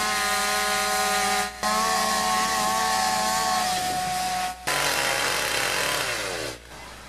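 Chainsaws running at high revs while cutting into upright logs. The sound is steady, breaks off briefly twice, changes pitch between stretches, and drops much quieter near the end.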